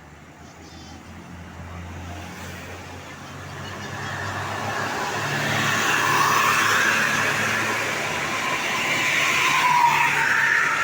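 Tour bus approaching along the road: engine and tyre noise grow steadily louder over several seconds, and a whine drops in pitch near the end as it passes.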